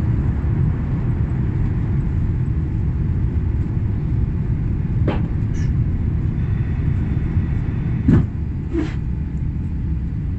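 Airliner's jet engines at takeoff thrust, heard inside the passenger cabin as a loud, steady low rumble during the initial climb. A few short knocks sound over it, the loudest about eight seconds in.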